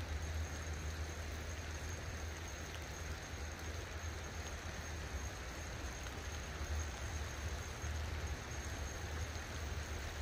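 Light rain falling on a river and the bank around it, a steady even hiss, over a steady low rumble.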